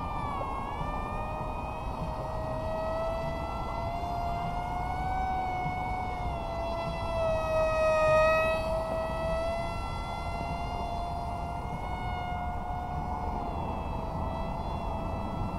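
RC F-22 plane's electric motor and Gemfan Hurricane 3018 two-blade propeller whining in flight, the pitch wavering gently up and down. It gets louder to a peak about eight seconds in as the plane passes close overhead, then eases off.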